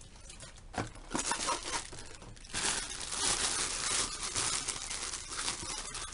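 Clear plastic packaging bag crinkling as it is handled and unwrapped. A few light clicks and rustles come first, then steady crinkling from about two and a half seconds in.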